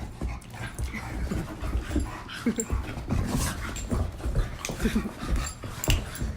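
Pet dog panting and whimpering, with irregular short knocks and clicks.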